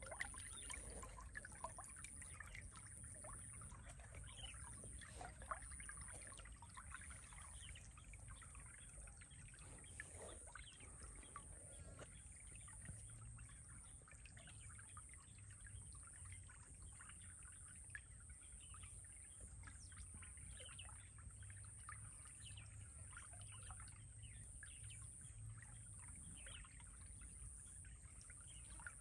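Faint, continuous trickling of a shallow, clear stream flowing over stones, under a steady high-pitched hiss.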